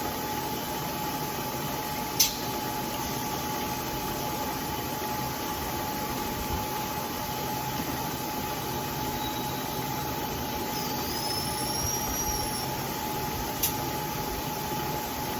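Bridgeport milling machine running steadily with a constant hum, with a sharp click about two seconds in and another near the end.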